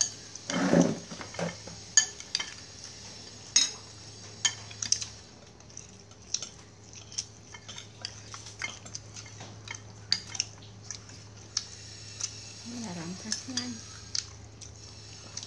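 Metal spoons clinking and scraping against ceramic bowls as curry is spooned onto rice, in irregular sharp clinks every half second or so. There is a dull knock about a second in and a brief voice near the end.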